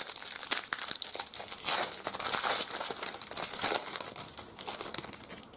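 Foil trading-card pack wrapper (2003 Upper Deck Hulk Film and Comic Cards) being torn open and crinkled: a dense run of crackling rustles that stops just before the end.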